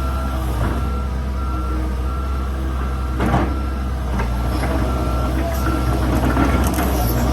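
Komatsu PC120-8 excavator's diesel engine running steadily while its travel alarm beeps over and over, with a metallic clank a little over three seconds in and more clattering near the end.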